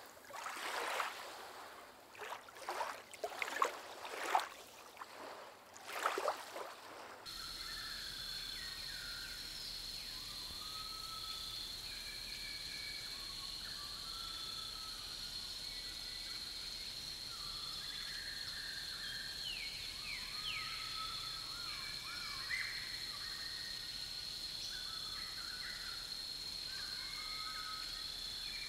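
A run of loud bird calls, many in quick succession, then about seven seconds in an abrupt change to a nature bed of a steady high insect buzz with scattered short chirping calls.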